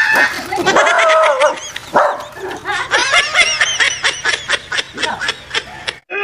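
A dog barking and yelping under an upturned bamboo basket. The calls quicken into a fast run of short yelps from about three seconds in, then stop abruptly near the end.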